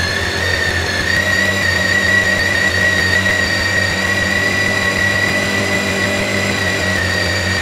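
BMW K1600GTL's inline-six engine held at raised revs by hand on the throttle while on its stand, warming toward operating temperature. Its pitch creeps up slightly in the first second, then holds steady with a high whine over the engine note.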